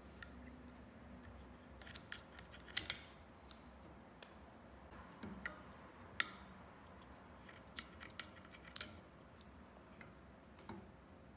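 A pair of scissors snipping: about eight short, sharp cuts spread over several seconds, some in quick pairs.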